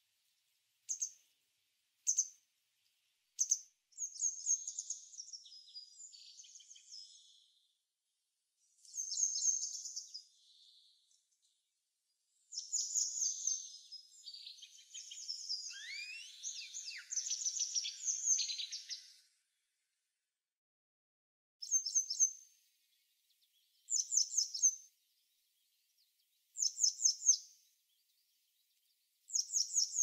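Small songbirds chirping: short high calls a second or so apart, longer twittering phrases through the middle with a few rising whistles, then single calls every few seconds near the end.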